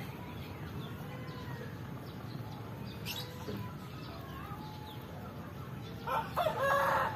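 A loud animal call begins about six seconds in and lasts about a second and a half, over a steady low background hum.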